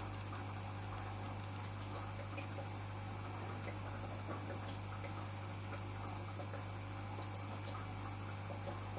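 Aquarium filter pump running: a steady low electrical hum under a soft trickle of moving water, with scattered faint drips and ticks.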